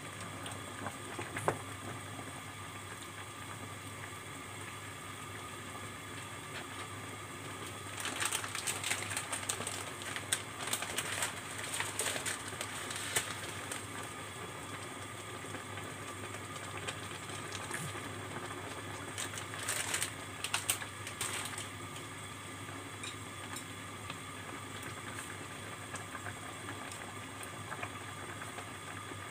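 Water at a rolling boil in a stainless steel pot, bubbling steadily. Bursts of sharp clicking and crackling come over it twice, once about a third of the way through and again past the two-thirds mark.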